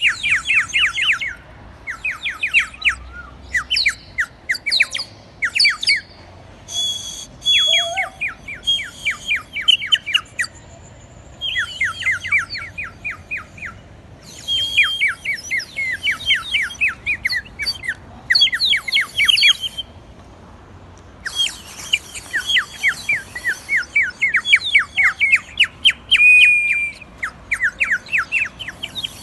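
Clay bird water whistle blown in a run of bursts, each a fast warbling trill of chirps, with short pauses between the breaths. The water inside the whistle makes it warble like a bird rather than whistle plainly.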